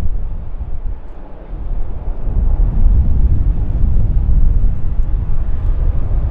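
Jet engines of a four-engine Airbus A380-800 landing: a loud, deep rumble that dips for a moment and swells again about two seconds in.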